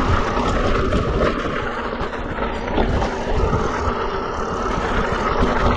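Mountain bike rolling down a steep, loose rocky trail under constant braking: tyres crunching over loose rock and the bike rattling over the chunk, with many short knocks, and wind buffeting the helmet- or body-mounted action-camera microphone.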